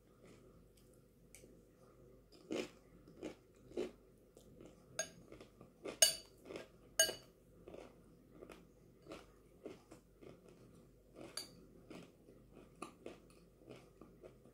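Crunchy chewing and biting of chana chatpate, a snack with dry Wai Wai noodles and fried nimki, as a run of crackly crunches. Two sharp clinks of a metal spoon against the glass bowl come about six and seven seconds in and are the loudest sounds.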